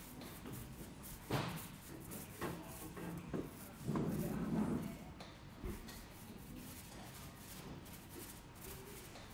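Paint roller being worked back and forth in a paint tray: wet rubbing and light knocks of the roller frame against the tray, with a sharp stroke about a second in and a louder, longer rub around four seconds in.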